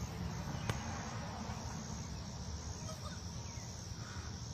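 A steady high-pitched insect chorus, typical of crickets on a summer evening, over a low rumble. There is a single sharp click less than a second in.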